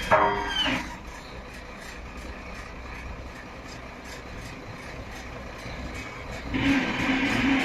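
Diesel engine of an XCMG XS233J road roller running steadily. A brief high squeal falls in pitch at the start, and the engine grows louder about a second before the end.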